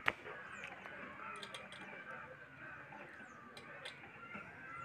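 A sharp metallic click just after the start, then a few faint scattered clicks and taps: a diesel-engine radiator fan and its hub bolts knocking against the pump shaft as the fan is worked on by hand.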